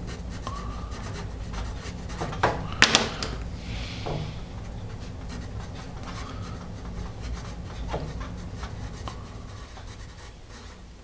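Paper Mate Mirado graphite pencil writing block capitals on paper: a run of short, light scratchy strokes, with a couple of louder sharp sounds about three seconds in.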